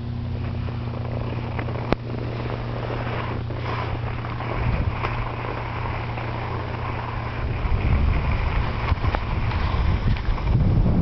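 Wind buffeting a handheld camera's microphone as the camera operator skis down a groomed run, with skis sliding on the snow. A steady low hum sits under it at first, and the buffeting grows stronger and more gusty about two-thirds of the way in.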